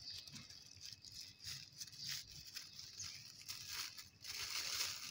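Thin clear plastic bag crinkling and rustling as hands unfold it, in irregular crackles that get louder near the end.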